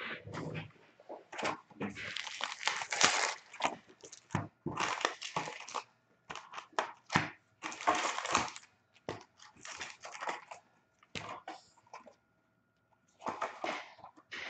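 Packaging on sealed boxes of hockey cards being torn and crinkled open by hand: a run of short ripping and rustling bursts, with a brief pause near the end.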